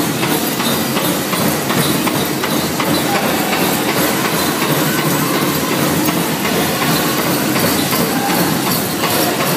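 Dense, steady rattling and jingling from the bells and jingles on the regalia of a crowd of pow wow dancers moving past in a packed hall.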